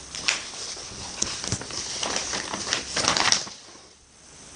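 Paper sheets rustling and crinkling as a letter's pages are handled and leafed through, in irregular short rustles that bunch together about three seconds in.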